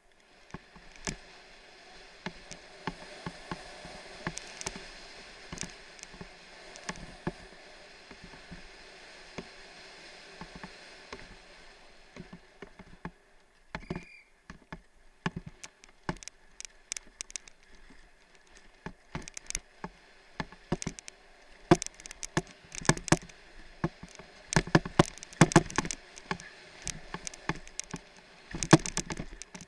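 Downhill mountain bike ridden fast over rough ground, heard from a helmet camera: a steady rush of wind over the microphone for about the first twelve seconds, then a clatter of sharp knocks and rattles from the bike's chain, frame and tyres hitting bumps, growing denser and louder through the second half.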